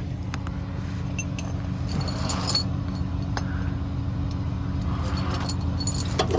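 Tow truck engine idling steadily with a low hum. A few light metal clinks from tow chain and hooks being handled sound over it.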